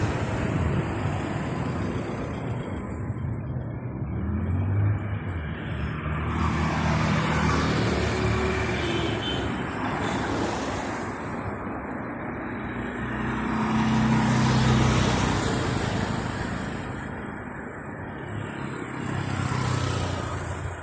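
Busy town street traffic: a steady rumble of engines, with vehicles passing one after another, each swelling and fading, the loudest pass a little past the middle.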